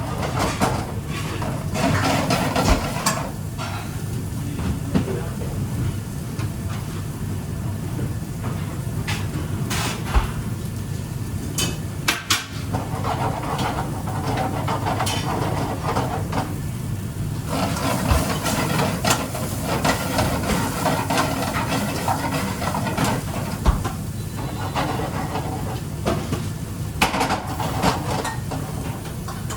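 Kitchen work clatter: dishes, pans and utensils clinking and knocking at irregular moments over a steady low hum.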